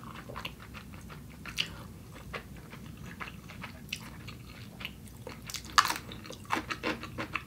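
Close-miked chewing of cold spicy buckwheat noodles: soft, wet mouth sounds with a few sharper crunchy clicks near the end.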